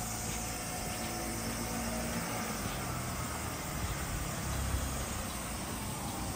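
Street traffic: a motor vehicle's engine running nearby over a steady hum of road noise.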